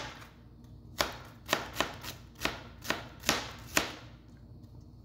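Chef's knife slicing a red onion on a plastic cutting board: about seven sharp knocks of the blade on the board, starting about a second in and stopping near four seconds.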